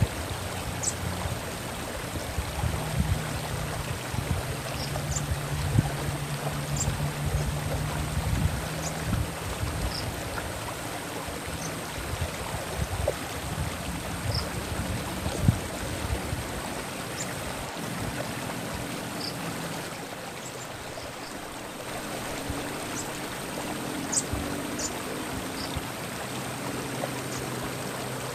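Running stream: a steady rush and gurgle of flowing water. Short, faint high chirps are scattered through it, about one every second or two.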